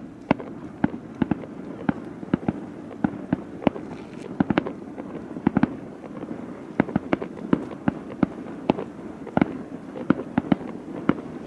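Fireworks display: a rapid, irregular series of sharp bangs, several a second, over a continuous low rumble of further reports.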